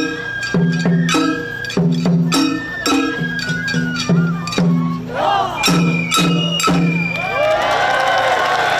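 Shagiri festival music: drums and hand cymbals struck in a fast driving rhythm under a held flute note, turning into a dense wash of clashing, ringing cymbals near the end.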